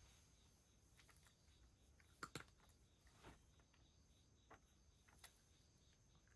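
Near silence broken by faint, scattered clicks of a cat eating from a shallow wooden dish, the loudest a quick pair about two seconds in.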